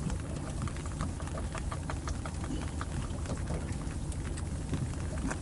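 Water lapping and pattering against the hull of a small moored fishing boat: scattered small ticks and splashes over a steady low rumble.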